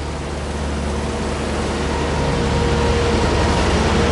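Semi truck's diesel engine idling steadily, a low even hum that grows a little louder toward the end.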